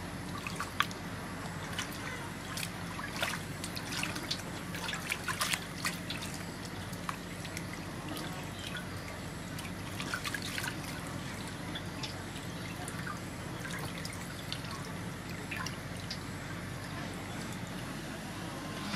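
Hands washing a slab of raw pork in a metal basin of water: repeated small splashes, drips and trickles as the meat is rubbed and lifted, busiest in the first half and sparser later.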